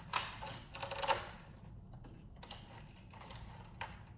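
Handling noise of small plastic parts and cables: a burst of rustling and clattering with sharp clicks in the first second or so, then a few scattered light clicks.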